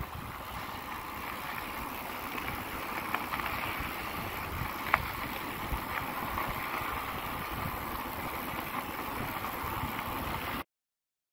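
E-bike tyres rolling over a gravel road at speed, with wind rumbling on the microphone and a few sharp ticks from the gravel. The sound cuts off abruptly near the end.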